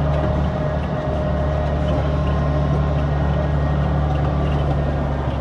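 Tractor engine running steadily, a constant low drone, while hauling a trailer loaded with freshly harvested barley.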